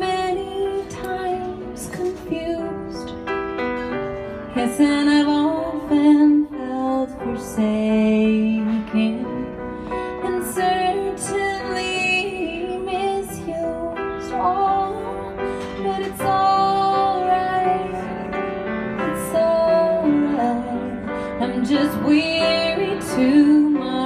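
A woman singing a slow, tender ballad, accompanying herself on a grand piano.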